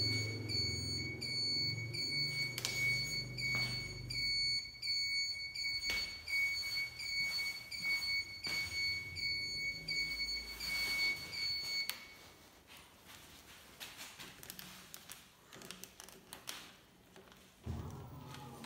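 Electric scooter's turn-signal buzzer giving a high, steady beep that pulses regularly while the indicator flashes, then stopping about twelve seconds in. After it stops, light clicks and knocks follow.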